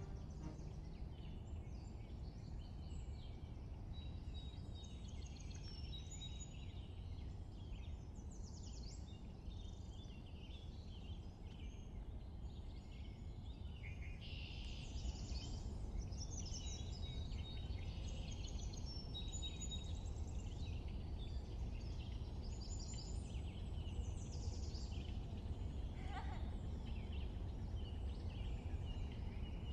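Birds chirping and twittering over a steady low background hum, the chirps coming thicker in the second half.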